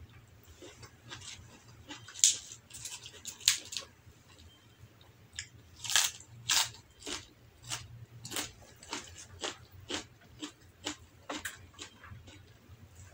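Close-miked chewing of a mouthful of rice and side dishes eaten by hand: a string of sharp mouth clicks and crunches, loudest about two and six seconds in.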